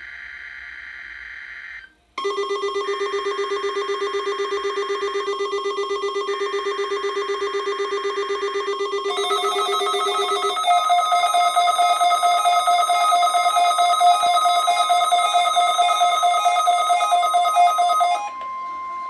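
NOAA Weather Radio weekly test tones. It opens with bursts of the station's digital alert data. From about two seconds in, a weather-alert receiver sounds a rapid pulsing electronic alarm that shifts to a higher pitch about nine seconds in and stops near the end. From about ten seconds in, the steady 1050 Hz warning tone sounds beneath the alarm.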